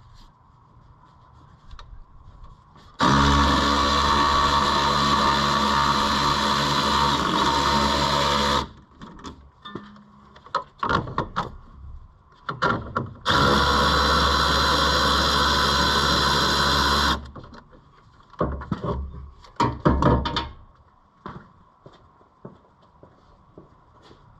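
A cordless power tool runs steadily twice, for about five seconds and then about four, starting and stopping sharply as it spins the T-bolt clamps loose on the intercooler pipes. Light clanks and knocks of tools and metal parts come between and after the runs.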